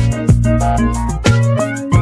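Background music with a steady beat, pitched instrument notes over a bass line.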